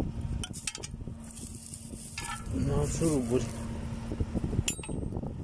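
A steel wrench working bolts on a disc harrow's frame: scraping and rustling with a few sharp metal clicks, about half a second in and again near the end. A short wavering voice sound comes around three seconds in.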